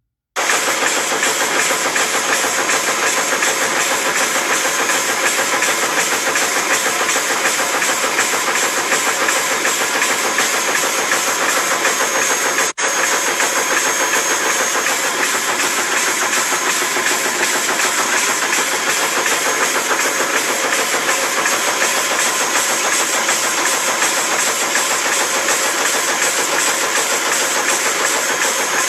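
High-speed automatic stamping press running, a loud, rapid, even clatter of press strokes with a steady hiss and a faint high whine.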